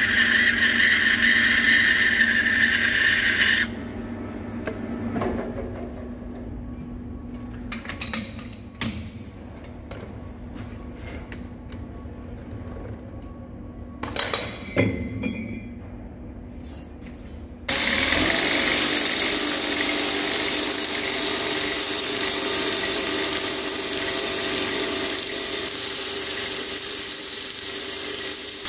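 A centre lathe runs with a steady high whine and stops about four seconds in. Metal clinks and knocks follow as a cylinder barrel is handled in the lathe's four-jaw chuck. About two-thirds of the way through, a belt grinder starts grinding a steel oil-port fitting, a loud, even, hissing grind that goes on to the end.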